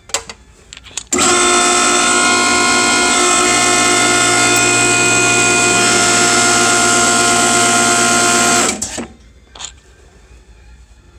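Hydraulic hose crimping machine running under power for about seven and a half seconds, pressing a fitting onto a hydraulic hose to crimp it further. It starts abruptly and stops abruptly, with a few small clicks before and after.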